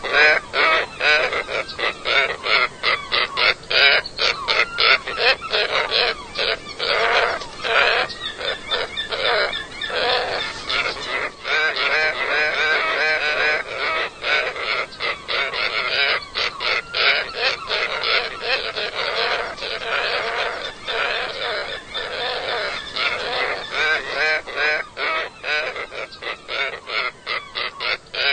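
A flock of scarlet ibises calling, with many overlapping calls several times a second and no pause.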